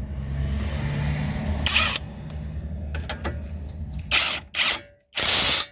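A power wrench running in short bursts, tightening the shock absorber's mounting bolts: one burst about two seconds in and three quick ones near the end, over a steady low hum.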